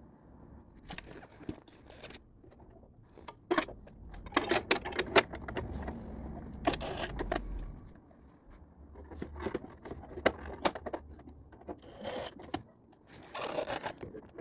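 Milwaukee M18 cordless driver running slowly in two runs of a few seconds, turning screws back into a plastic bike cover. Clicks and scrapes of the bit and screws come before and between the runs.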